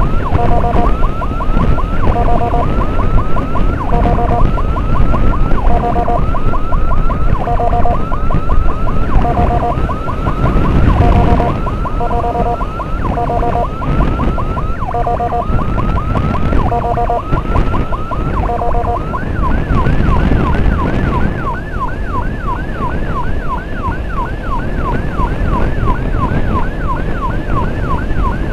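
Electronic emergency siren in the escort convoy, running a fast chirping yelp that is broken about every second by short, steady, lower two-tone blasts. About two-thirds of the way through it switches to a quicker run of rising whoops. The rumble of wind and motorcycle running underneath is heard the whole time.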